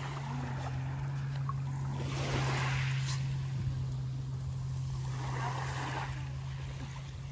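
Steady low drone of a boat engine running out on the water, holding one pitch throughout, with a soft wash of small waves rising and falling twice.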